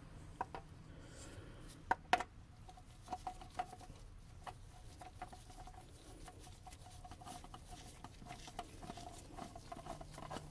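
Faint clicks and light scraping taps of a new oil filter being threaded onto its mount by a gloved hand, with two sharper clicks about two seconds in.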